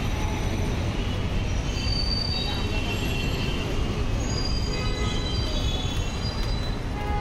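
Steady street noise: a low traffic rumble with short high-pitched squeals and tones scattered through it.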